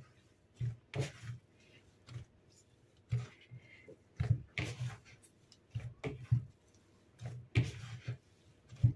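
Hands kneading cookie dough in a plastic bowl: irregular soft thumps and knocks as the dough is pressed and turned, with some rubbing.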